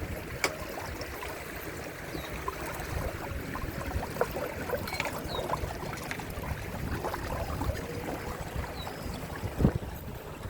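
Water gurgling and splashing along the hull of a Windrider 17 trimaran sailing, with scattered light knocks and one sharper knock near the end.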